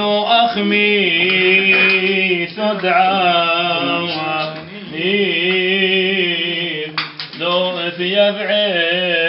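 A man chanting a Syriac Orthodox hymn solo, in a melismatic style with long held notes that waver and slide between pitches, broken by brief pauses for breath about halfway through and again a couple of seconds later.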